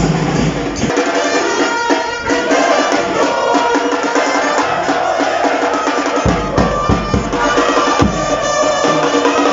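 A supporters' band of drums and brass (trumpets) playing a chant tune in the stands, with a steady beat. The deep bass drum drops out about a second in and comes back about six seconds in.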